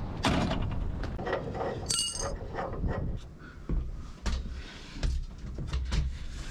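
A series of knocks and clinks over a low rumble, with one brief ringing clink about two seconds in.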